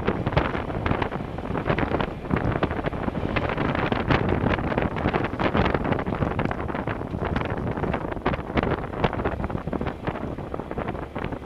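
Wind buffeting the microphone of a motorcycle riding along a gravel road, with the engine and tyres on loose gravel under the gusting noise.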